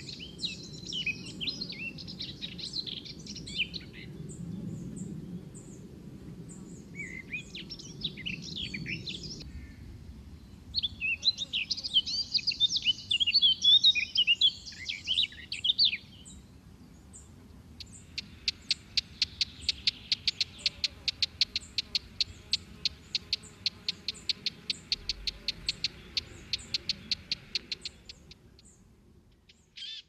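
Small birds chirping and twittering in scattered bursts, followed by a fast, even trill of about five notes a second that runs for around ten seconds before stopping.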